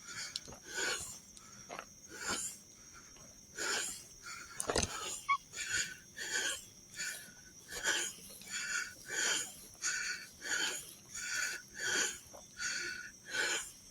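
A person's heavy, fast breathing while walking: an even run of breaths, about one and a half a second, with one sharp knock about five seconds in.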